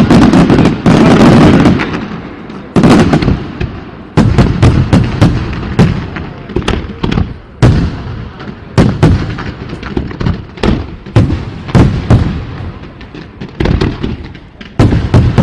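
Fireworks display bursts: a dense run of overlapping booms in the first two seconds, then separate sharp bangs about two a second.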